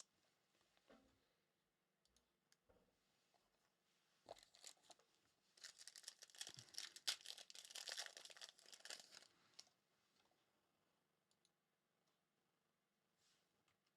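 A foil trading-card pack wrapper being torn open and crinkled, a dense crackling rustle from about four seconds in to near ten seconds; otherwise near silence.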